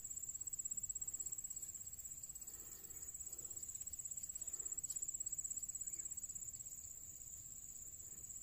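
An insect trilling steadily on one high pitch, with a fine, rapid pulse.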